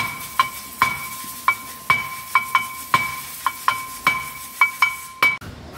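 Hammer blows on a Toyota Coaster's front wheel hub and brake disc assembly: sharp metallic strikes, two or three a second at an uneven pace, each leaving a short ringing tone.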